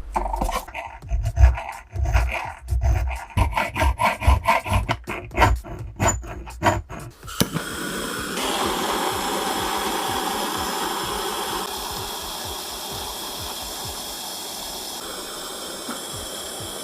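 Quick, uneven rubbing or filing strokes on a pistol part for several seconds, then a steady hiss from a power tool working the metal.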